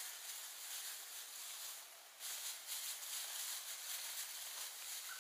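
Faint outdoor background hiss, mostly high-pitched, growing a little louder about two seconds in.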